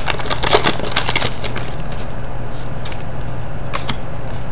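Foil trading-card pack wrapper crinkling as the cards are pulled out, then a few soft clicks of cards being handled, over a steady low hum.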